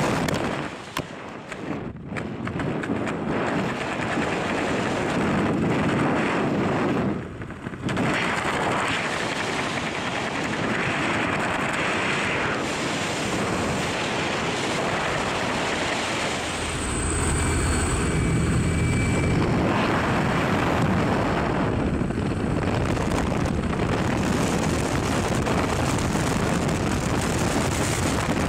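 Wind rushing over a skydiver's helmet-camera microphone, mixed with the drone of the jump plane's propeller engine. The rush drops away briefly twice, about two seconds in and again about seven seconds in.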